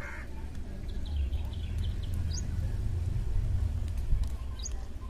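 A small bird chirping, a run of short chirps followed by two quick rising calls, over a steady low rumble.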